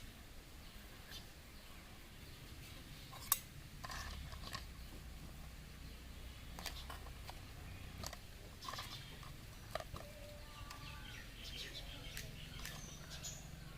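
Faint light clicks and taps of miniature toy dishes and pretend food pieces being handled and set out, with one sharper click about three seconds in.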